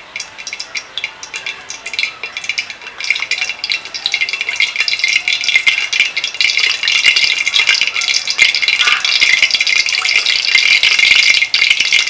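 Cooking oil heating in an iron karahi over a wood fire, sizzling and crackling. The crackle thickens and gets louder from about three seconds in as the oil starts to bubble.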